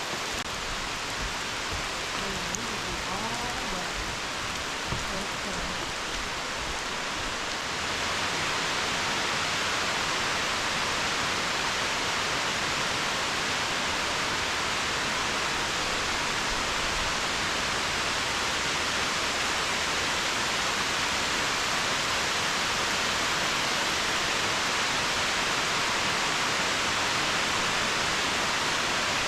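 Heavy rain coming down hard, a steady hiss that becomes louder and fuller about eight seconds in as the rush of a waterfall joins it.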